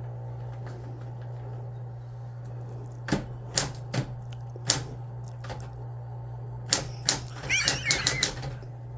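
Typewriter keys struck one at a time, slow and irregular: a few single clacks spaced well apart, then a quicker run of strikes near the end, over a steady low hum.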